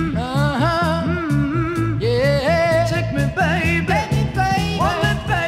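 Background music: a song with a singing voice over a band with a steady beat.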